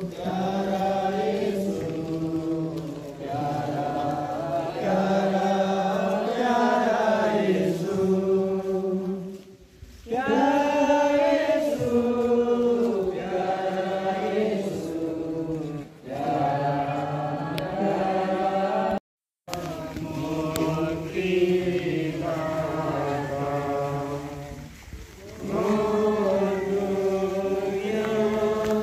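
A congregation singing a devotional hymn together in sung phrases, with short pauses between them. About two-thirds of the way through, the sound cuts out completely for a split second.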